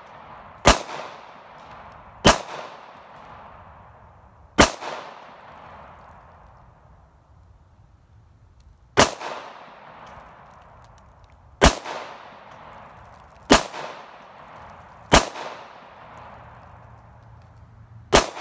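Eight single pistol shots from a custom 9mm Glock 19, fired at a slow, uneven pace one to four seconds apart. Each sharp report is followed by a short echo.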